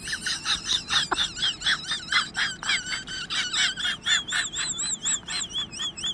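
Birds chirping in a quick, dense run of high, wavering chirps, about four or five a second, that turns into longer warbling notes near the end.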